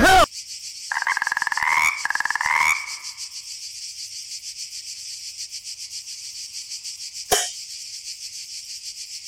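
Frogs and crickets at night: a rapid, pulsing frog call rising in pitch in the first few seconds, over a steady high cricket trill. A brief falling swish comes near the end.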